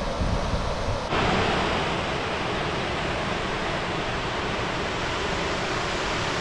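Steady rushing of water pouring over a low-head dam spillway, stepping up in level about a second in.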